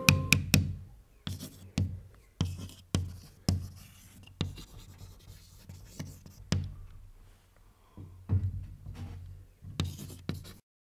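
A string of sharp scratchy taps and strokes at uneven intervals, each fading quickly, which stop suddenly near the end.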